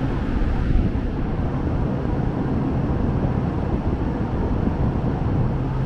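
Steady low hum and rumble of an electric express train standing at a station platform.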